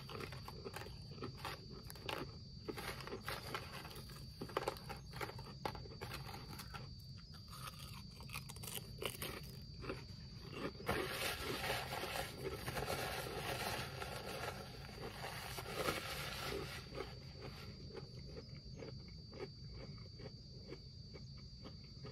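A person chewing thin, crispy barbecue potato chips: a run of small, irregular crunches, growing denser and rougher for several seconds in the middle.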